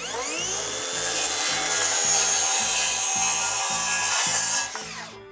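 Cordless circular saw spinning up and cutting through half-inch plywood, with a high whine throughout. The blade winds down just before the end.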